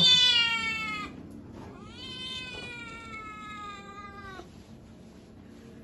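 Domestic tabby cat giving two long, drawn-out yowls: the first loud and sinking slightly in pitch, the second lasting about two and a half seconds and trailing off. The cat is protesting at being restrained for an eye examination.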